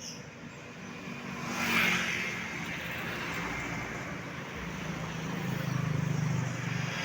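Road traffic: a vehicle passes close with a rush of noise about two seconds in, then a low engine drone builds toward the end as another vehicle approaches. No horn sounds.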